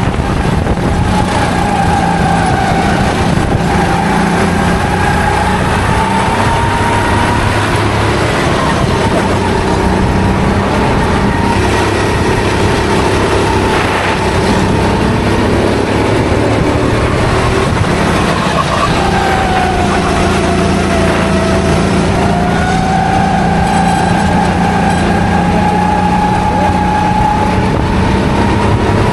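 Onboard sound of a racing kart's engine running hard around the track, its pitch rising and falling with the corners. About twenty seconds in the revs drop noticeably, then climb back up.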